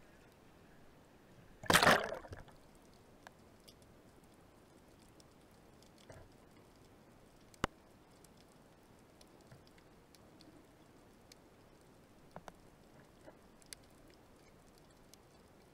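A short, loud splash and gurgle as the camera goes under the sea, then a quiet underwater hush broken by scattered sharp clicks, the sharpest about halfway through.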